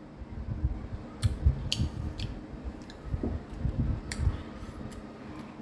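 Close mouth sounds of a person chewing lemon: a few sharp, wet clicks and smacks scattered through, over soft low thuds.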